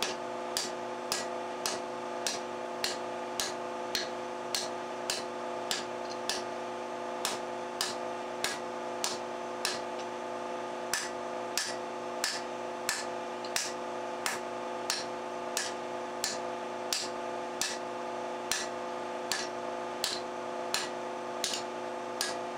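Hand hammer striking a yellow-hot bar of 3/4-inch 4130 steel sucker rod on an anvil, drawing it down in steady, even blows about twice a second. A steady hum runs underneath.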